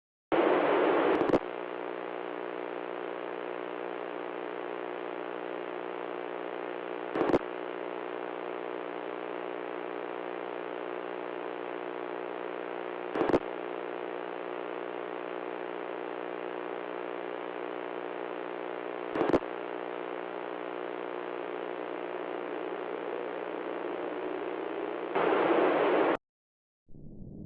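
Steady buzzing static with a hum in it, louder for about a second at the start and again near the end. A brief crackle comes every six seconds, and the buzz cuts off abruptly just before the end.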